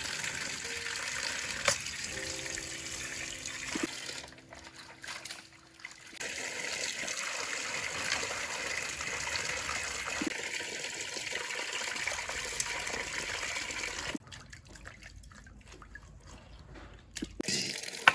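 Running water splashing steadily, dropping away for a couple of seconds twice before starting again.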